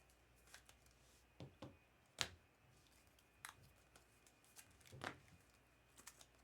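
Faint, sparse handling of trading cards and their pack wrappers: a few soft scrapes and ticks, the sharpest about two seconds in, the rest near silence.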